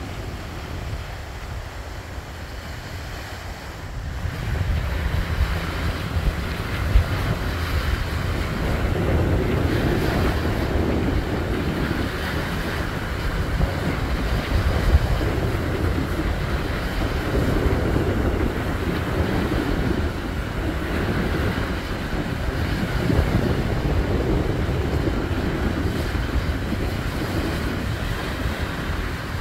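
Wind buffeting the phone microphone in gusts, over the wash of choppy sea and small waves on the shore; the wind grows stronger about four seconds in.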